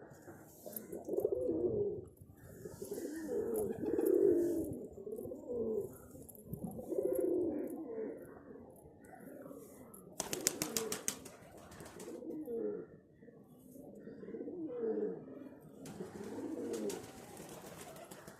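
Domestic pigeons cooing over and over, low warbling coos that rise and fall in pitch. A rapid rattle of even clicks sounds for about two seconds, starting around ten seconds in, and again near the end.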